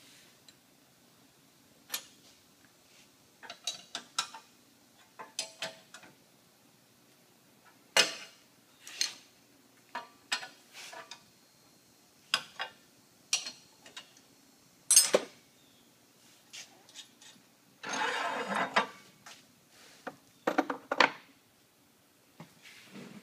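Steel puller rod and fittings being handled on a steel roller fixture: scattered metal clinks and knocks, with a scraping rub lasting about a second about three-quarters of the way through.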